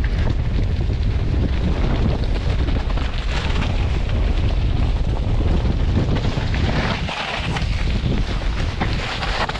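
Wind buffeting the microphone of a bike-mounted or rider-worn camera on a mountain bike riding a trail at speed, with steady tyre rumble and rattle from the trail surface. It eases briefly about seven seconds in.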